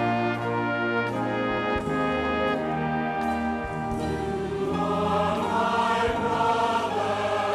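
A choir and orchestra performing a sacred choral work. Sustained chords with brass, each struck afresh about once a second, and then about halfway through the choir's voices come in singing with vibrato.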